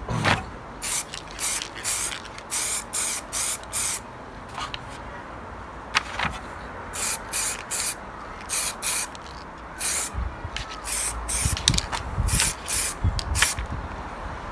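Aerosol spray-paint can spraying in short bursts of hiss, several a second, in three runs with short pauses between them.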